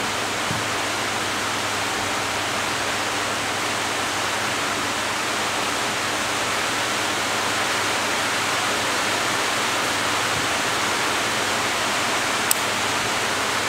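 Electric fans running: a steady, even rushing noise with a faint low hum under it. Near the end there is one sharp click as a rocker switch on the wiring panel is pressed.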